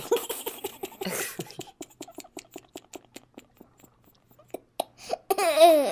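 A person's voice in a long run of rapid, short breathy pulses like jerky laughter or strange breathing, ending near the end in a louder, wavering voiced sound.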